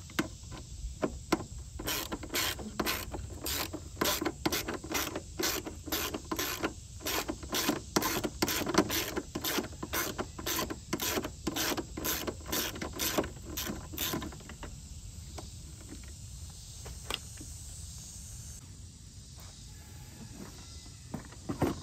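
Hand ratchet wrench with a socket extension clicking in quick, even strokes, about two or three a second, as it backs out the bolt holding a riding mower's fuel-tank bracket. It clicks for about twelve seconds, then stops.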